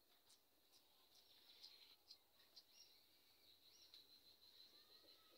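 Near silence: faint outdoor background with a few scattered high chirps and ticks.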